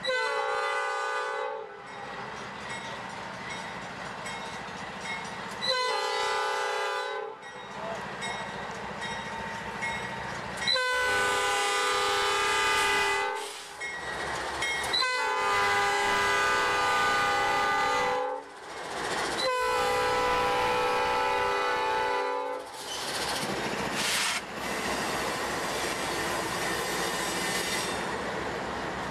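Norfolk Southern freight train's diesel locomotive horn sounding five chord blasts of one and a half to three seconds each, the middle ones longest. After the last blast, the passing locomotives and hopper cars rumble by close at hand, with wheels clacking over the rail.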